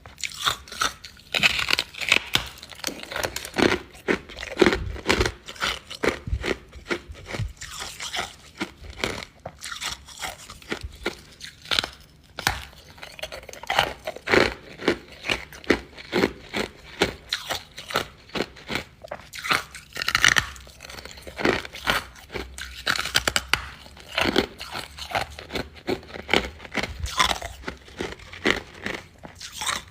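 Refrozen freezer frost being bitten and chewed close to the microphone: a steady run of sharp, crisp crunches several times a second.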